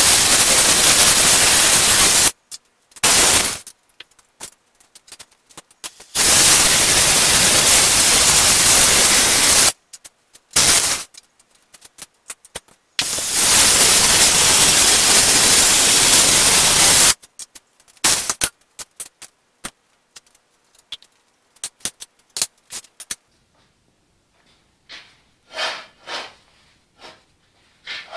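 Oxy-acetylene torch flame hissing loudly in three long stretches as it heats a part on a tractor's front axle to loosen it, with short metal clinks and knocks between the stretches and a few scattered knocks near the end.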